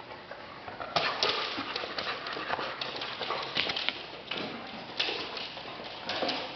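Newfoundland and Clumber spaniel puppies play-wrestling over a toy, their claws and paws clicking and scrabbling on a hardwood floor in quick irregular bursts, starting about a second in.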